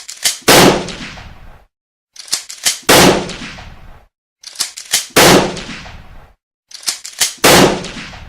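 Shotgun fired four times, about two and a half seconds apart, each loud shot preceded by a few sharp metallic clicks and trailing off in about a second of echo.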